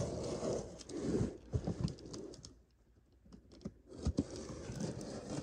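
Knife cutting open a package: scratching and rustling with small clicks and knocks, and a short pause about halfway through.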